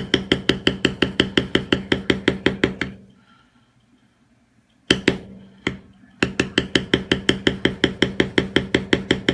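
Metal leather stamping tool struck with a mallet in a quick, even run of about seven blows a second, tooling a leather belt. The run stops about three seconds in, two single blows follow, then the quick tapping resumes.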